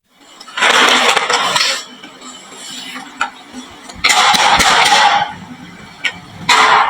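Marbles clattering down a wooden marble run, in three loud bursts of rattling with scattered single clicks between them.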